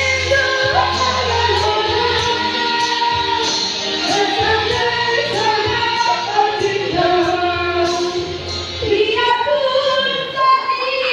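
A woman singing a melody over backing music with a steady beat. The low bass of the backing drops out about nine seconds in, leaving the voice more exposed.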